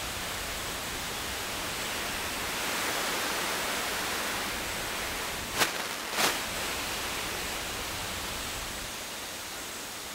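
A steady, even hiss, with two short sharp clicks about half a second apart near the middle.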